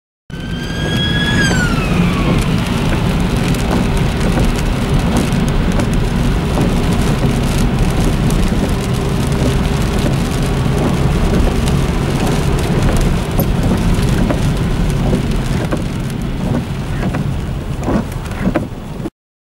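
A siren's tone held for a moment and then falling in pitch about a second in, followed by a dense, steady wash of heavy rain and wet-road traffic noise with tyre spray. The noise stops suddenly near the end.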